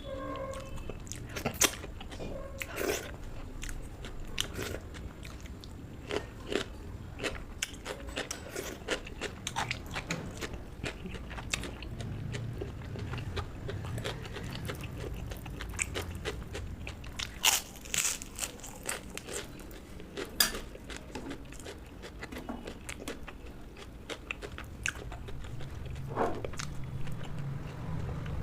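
Close-miked crunching and chewing of crisp fried food, with irregular sharp crackles and a few louder crunches in the second half.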